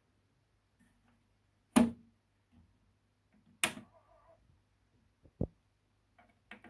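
Mechanical clicks from a Nakamichi Cassette Deck 1 as its cassette door closes and its front-panel buttons are pressed: two sharp clunks about two seconds apart, a brief faint whir after the second, then a short low click and lighter button clicks near the end.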